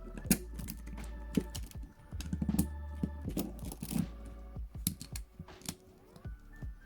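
Irregular metallic clicks and taps of a pair of Hiatt 1970 handcuffs being worked with a lock tool, several quick clicks in a row.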